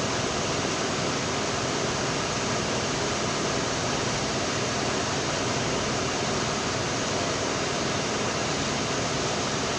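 Vintage electric fan running, a steady rushing hiss of its blades moving air.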